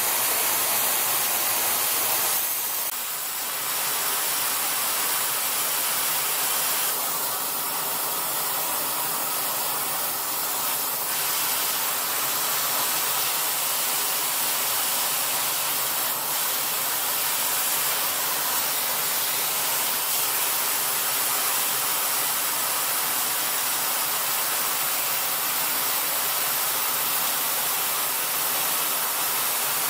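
Thermal metal spray gun hissing steadily as it coats a worn screw-compressor shaft to build up its bearing seats, with a brief dip in level about three seconds in.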